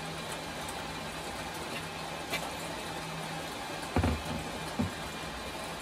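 Glass PC side panel knocking against the tabletop as it is handled and lifted: a loud low thump about four seconds in and a smaller one just after, with a light tap earlier. Under it is a steady background hiss and hum.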